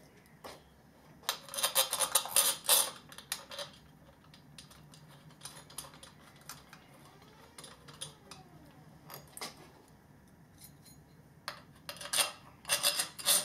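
Metal parts and tools clinking and rattling as they are handled during electric motor reassembly, in two busy spells about a second in and again near the end, with only scattered light clicks between.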